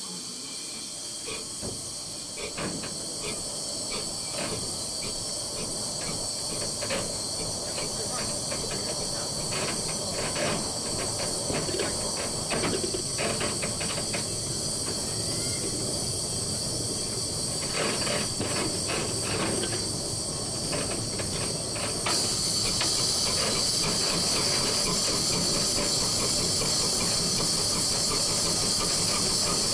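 Cab sound of a 1925 La Meuse steam locomotive under way: a steady hiss of steam with irregular clicks, knocks and rattles from the running engine. About three quarters of the way through the hiss gets suddenly louder.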